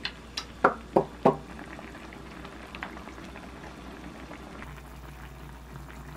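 A pot of spicy chicken-feet stew with bean sprouts boiling on a portable butane gas stove, bubbling steadily. About five sharp taps come in the first second and a half.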